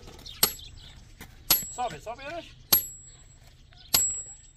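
Sledgehammer striking a metal rod driven into stony ground: four sharp metallic blows about a second and a quarter apart, each ringing briefly.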